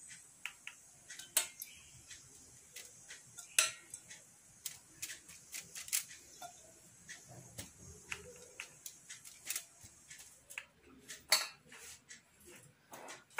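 Irregular light clicks and taps of a silicone pastry brush against a small stainless-steel saucepan as it is dipped in syrup and dabbed onto a sponge cake, with a few louder knocks of metal.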